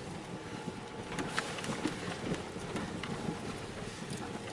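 Inside a car on snowy backroads: steady engine and road noise with scattered light knocks and crunches, irregular and never more than a few in a second.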